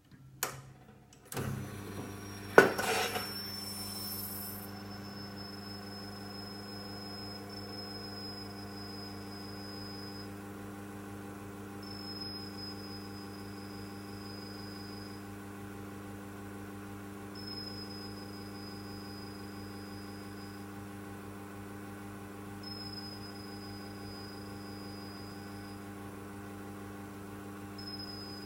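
An electrical device is switched on with a click and settles into a steady mains hum, with a loud click shortly after. Over the hum a thin, high whistle sounds for about three seconds at a time, sagging slightly in pitch. It cuts in again about every five seconds, each time with a faint click.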